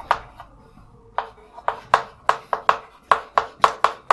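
Chalk tapping against a blackboard while writing: one tap at the start, then a quick run of sharp taps, about four a second, from about a second in.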